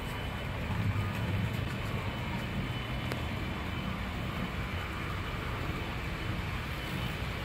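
Model train running around the layout track: a steady low rumble of its motor and wheels, swelling slightly about a second in.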